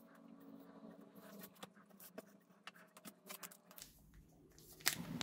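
Faint rubbing and small scratchy clicks of an alcohol wet wipe being wiped over a phone's glass screen. Near the end comes a louder rustle as a wipe sachet is picked up.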